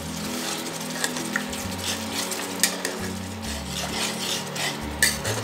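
Metal spatula stirring and scraping a watery masala gravy in a metal kadai, with a few sharp clinks against the pan, the loudest near the end, over the gravy's light sizzle on the heat.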